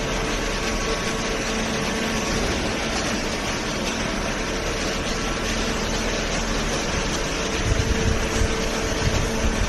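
Hydraulic cardboard baler running: a steady machine hum from its motor and pump, with a heavier low rumble coming in near the end.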